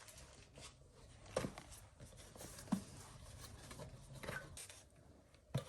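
Faint handling noises as the new shifter-shaft kit is unboxed: a few scattered light knocks and rustles of packaging.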